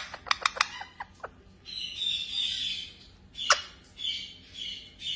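Pet parrot making a quick run of sharp clicks, then short raspy, chattering calls with a single click between them.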